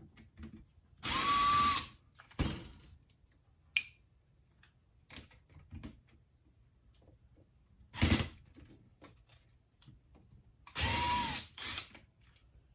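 Small electric screwdriver running in two short bursts of just under a second each, one near the start and one near the end, backing out two screws; each burst has a motor whine that rises and then dips. Light clicks and a knock from handling the unit fall between them.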